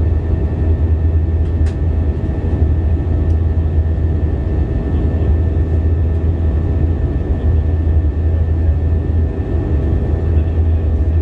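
Steady in-cabin drone of an Airbus A320-232's IAE V2500 turbofan engines in flight, heard from a seat over the wing: a strong low hum under a wash of rushing noise, with faint steady whining tones above.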